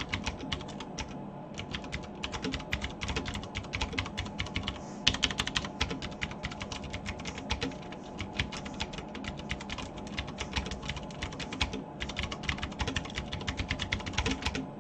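Fast, steady typing on a Ducky One 2 RGB TKL mechanical keyboard with Cherry MX Blue switches: a dense stream of sharp, clicky keystrokes with a few brief pauses.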